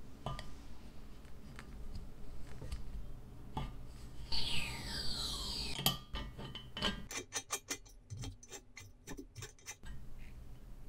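Small metal clicks and scrapes from parts being fitted to a brass blowtorch fuel tank: a few single clicks, then, about four seconds in, a scraping squeal falling steadily in pitch. From about seven seconds a fast even run of clicks follows, roughly six a second, for about three seconds as a part is turned in the tank's threaded fitting.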